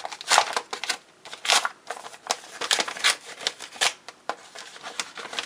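A paper envelope torn open by hand: a series of short, uneven paper rips and rustles.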